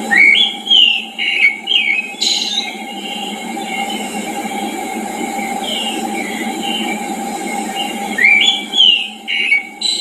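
A songbird singing two bursts of clear whistled phrases with rising and falling notes, one near the start and one near the end, with fainter bird calls between them over a steady background hiss and hum.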